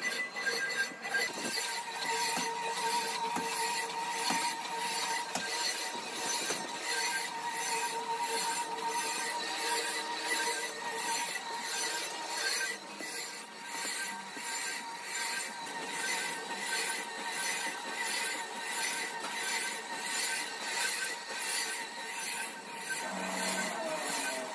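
Motor-driven foundry sand mixer running as it mixes moulding sand, a steady hum with a regular clatter about twice a second.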